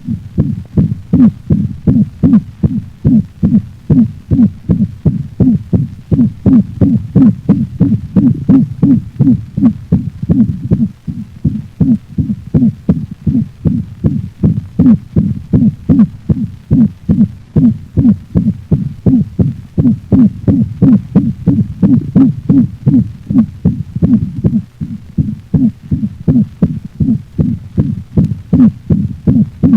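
Recorded dog heart sounds: a steady, regular series of heartbeats, low and thudding.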